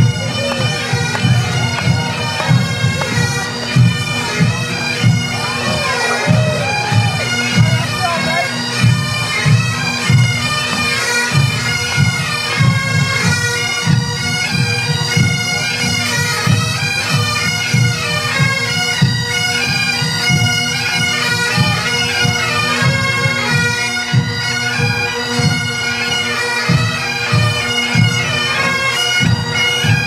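Massed Highland bagpipes playing a march, the melody over steady drones, with pipe-band drums beating time underneath.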